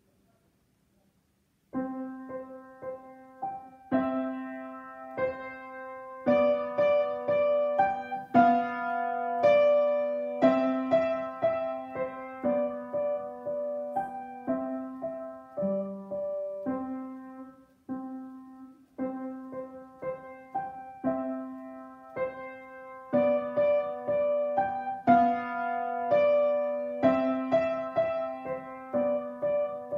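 Upright piano being played: after about two seconds of silence, a piece starts with notes struck in a steady rhythm over a held lower note, and carries on to the end.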